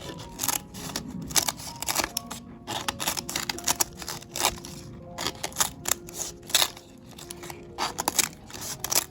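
Irregular sharp snips and clicks, several a second, from loquat flowers and leaves being picked and cut, over soft background music with held notes.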